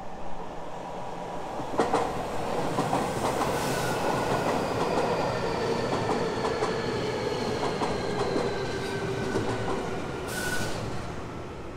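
Keio Inokashira Line 1000 series electric train running past, with clicks over the rails and several steady whining tones that drop slowly in pitch. A short hiss comes near the end.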